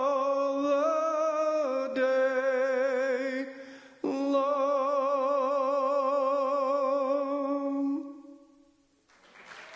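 A man's solo voice, unaccompanied and amplified through a microphone, singing slow held notes with wide vibrato. The last note is held about four seconds and then fades out.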